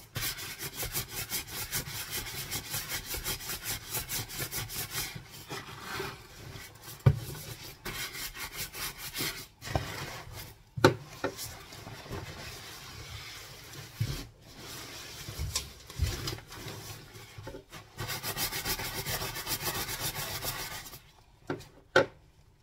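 Rubber-gloved hands scrubbing and scrunching the nylon shell of a puffer jacket being hand-washed in detergent in a sink: fast, rhythmic rasping strokes with a few sharp knocks in between, going quieter near the end.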